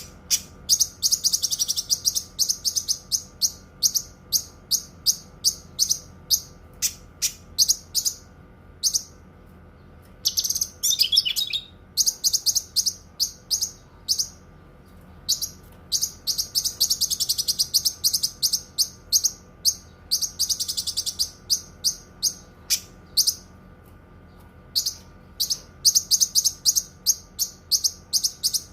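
Cucak kinoi singing: a long run of sharp, high chirps at a few per second, breaking into faster chattering trills now and then, with a short warbling phrase about eleven seconds in. A faint steady hum runs underneath.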